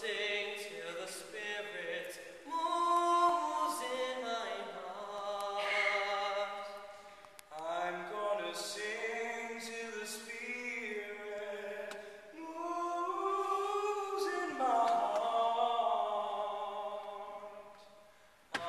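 Mixed youth choir singing a cappella: sustained chords in long phrases that swell and die away, with a brief break about halfway through and another near the end.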